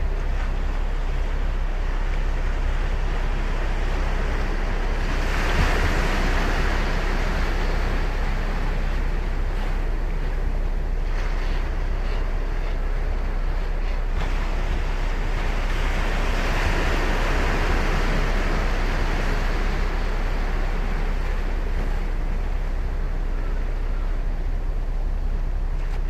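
Ocean surf washing onto a beach, with two waves breaking, one about five seconds in and one about sixteen seconds in, over a steady low rumble.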